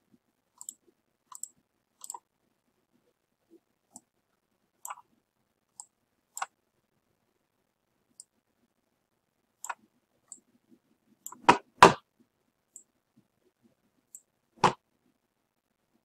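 Computer mouse clicks and keyboard key presses: scattered short, sharp clicks, with the two loudest in quick succession about two-thirds of the way through and another loud one shortly before the end.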